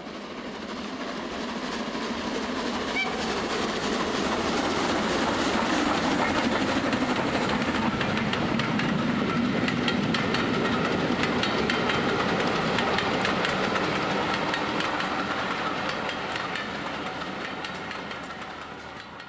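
Train running on rails, wheels clicking rapidly over the rail joints in a steady clickety-clack. It swells up over the first few seconds and fades out near the end.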